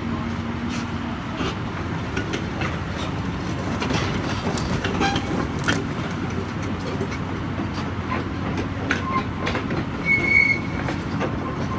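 Heavy machinery running steadily, with many metallic clanks and knocks and a brief high squeal about ten seconds in.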